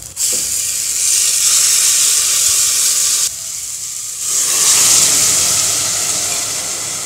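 Raw rice tipped into hot ghee and roasted moong dal in an aluminium pressure cooker, sizzling. After a brief lull about three seconds in, water poured into the hot pan hisses and sizzles.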